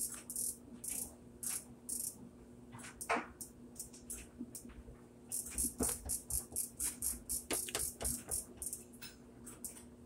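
The cycle selector knob of a Maytag MVWX655DW top-load washer clicking through its detents as it is turned back and forth to enter manual mode. A quick run of clicks comes first, then sparser clicks, then another steady run from about the middle on.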